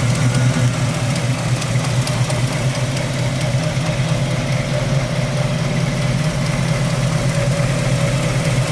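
Small-block Chevy V8 swapped into a 1977 Toyota FJ40, idling steadily.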